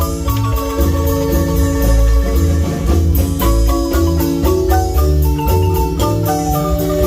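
Marimba ensemble playing a piece: a busy mallet melody on the marimba over a steady bass line and a regular cymbal beat.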